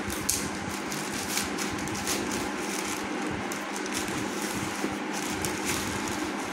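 Plastic courier mailer bag crinkling and tearing in short, irregular rustles as it is pulled open by hand, over a steady background hum.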